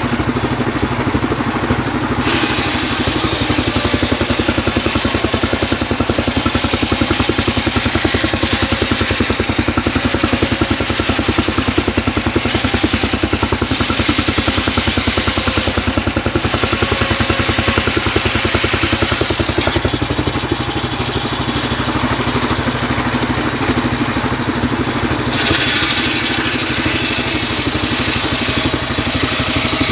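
Homemade engine-driven circular saw bench ripping a trembesi (rain tree) log into boards: the engine runs steadily under load while the blade hisses through the wood. The cutting noise grows about two seconds in, eases for a few seconds around two-thirds of the way through, then picks up again.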